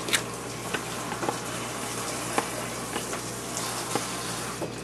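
Plastic spoon stirring a thin, liquid dipping sauce in a plastic bowl: a few scattered light clicks over a steady hiss.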